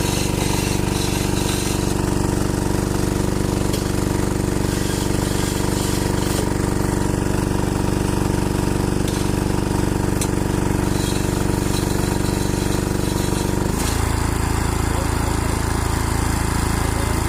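An engine running steadily with a constant low note; about 14 seconds in the note shifts abruptly to a different, lower-sitting pattern.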